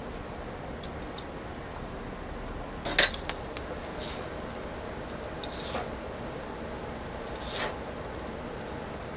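Coal forge with its air blower running steadily, and a single sharp metal clank about three seconds in, followed by a few brief softer scrapes.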